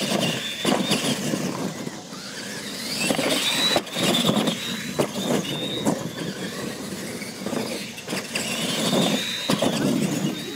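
Radio-controlled monster trucks racing on dirt: the high whine of their electric motors and gearing rises and falls several times as they speed up and slow, over a rough rumble with scattered knocks from the tyres on the track.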